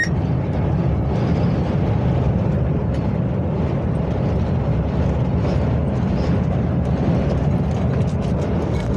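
Strong wind and road noise on a moving truck: a steady low rumble and rush with no distinct tones.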